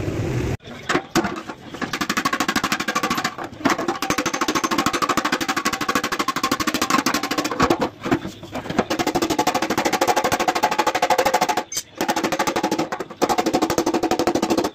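Very rapid, regular metallic tapping on a sheet-steel motorcycle fuel tank, the tank ringing under the strikes, with brief breaks a few times.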